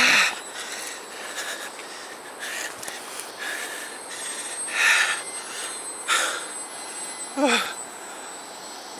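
A hiker breathing hard and unevenly through the mouth, several loud breaths a second or more apart, over a steady high-pitched whine.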